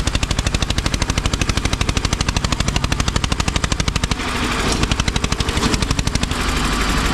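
Tractor diesel engine pulling hard, its exhaust a loud, rapid chugging of about ten beats a second. About four seconds in it turns rougher and denser, and shifts again near the end.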